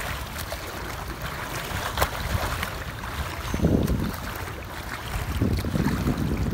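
Splashing of two children swimming, their arm strokes and kicks breaking the water in an uneven rhythm, with wind buffeting the microphone in low gusts.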